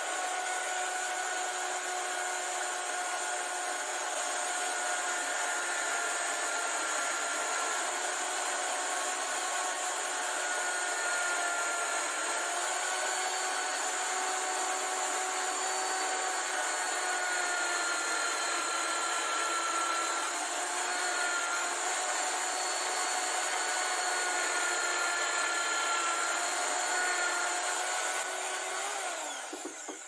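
Corded electric drill in a homemade wooden drill-press stand running with a steady motor whine while drilling into a wood block clamped in a wooden vise. The pitch dips briefly about two-thirds of the way through, and near the end it slides down as the motor winds down and stops.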